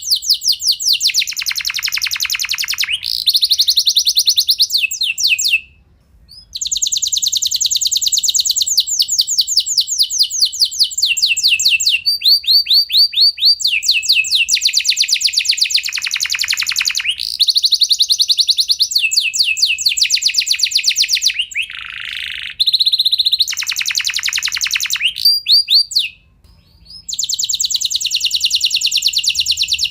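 Domestic canary singing long rolling trills: fast runs of repeated notes, switching to a new phrase every few seconds, with short pauses about 6 and 26 seconds in.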